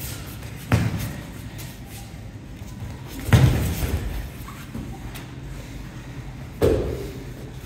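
Judo players grappling on mats: three sudden thuds of bodies hitting the mats, the loudest a little over three seconds in as the pair goes down to the ground, with shuffling and scuffling between them.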